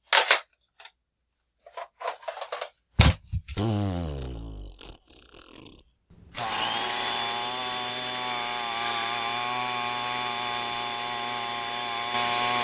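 A sharp knock, a falling pitched glide, then from about six seconds in a steady mechanical whir of a small motor that keeps going.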